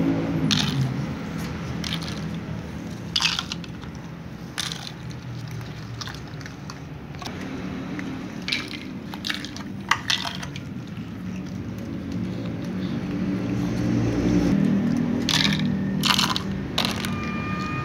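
Scattered light clicks and taps over a low background rumble that grows louder later on.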